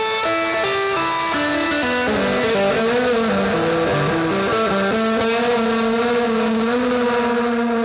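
Electric guitar played through a Headrush pedalboard with a dirty, distorted tone and reverb. It plays a quick run of single notes, then a long held note with vibrato from about five seconds in.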